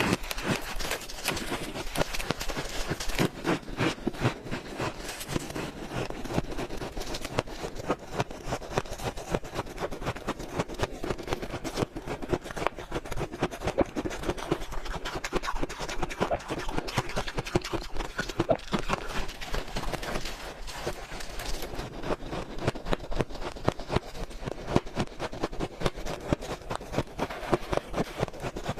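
A person biting and chewing a block of powdery shaved ice, close up: a dense, continuous run of crisp crunches without a pause.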